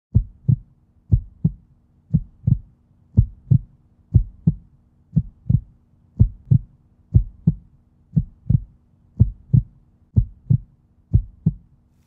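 Heartbeat sound effect: paired low thumps, lub-dub, repeating steadily about once a second over a faint steady hum.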